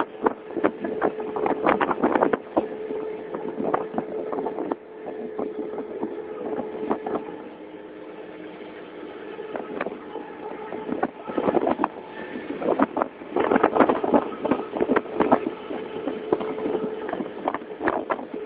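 Small open boat's engine running steadily under way, with irregular knocks and wind buffeting on the microphone; the sound eases for a few seconds in the middle.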